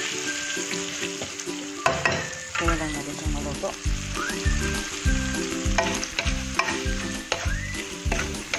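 Wooden spatula stirring and scraping shrimp, flaked tuna and onions sizzling in hot oil in a wok. Background music plays under it, its low beat coming in a few seconds in.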